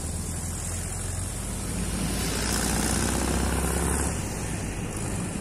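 An engine running with a steady low drone that eases off about four seconds in, under a steady high hiss.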